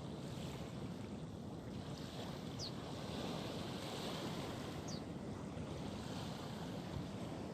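Steady rushing outdoor ambience of wind and water by a lagoon, with two brief high chirps a couple of seconds apart.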